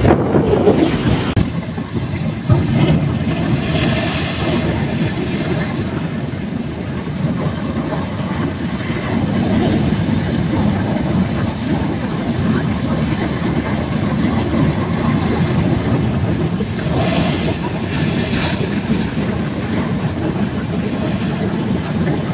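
Ocean surf breaking and washing over a rocky reef, water pouring off the rock ledges, with wind rumbling on the microphone. Louder washes come about four seconds in and again around seventeen seconds.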